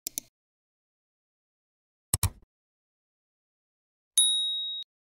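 Sound effects of a like-and-subscribe end-screen animation: a quick mouse click at the start, a sharper double click about two seconds in, then a short high bell ding about four seconds in that rings briefly and fades.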